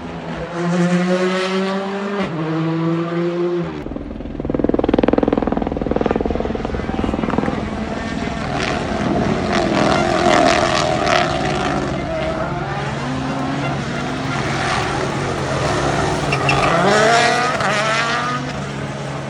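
Rally car at full attack: the engine climbs in pitch and shifts up twice as it approaches, passes loudly, then the revs fall and rise again through the corner with sharp cracks and pops from the exhaust, and another rise in engine pitch near the end.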